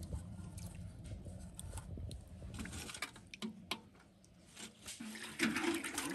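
Hand-washing a dug-up relic: light clicks, taps and wet squishes of fingers rubbing and handling the object in water, with the water running louder near the end.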